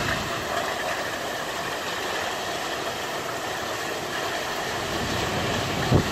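Sandstorm wind blowing hard and steadily, a continuous rushing noise, with a short thump just before the end.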